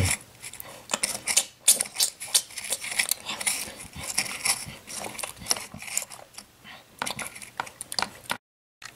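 A plastic model horse's muzzle pushed and scraped through dry flakes in a small wooden feed box, making a run of irregular rustling clicks and rattles, acting out a horse eating.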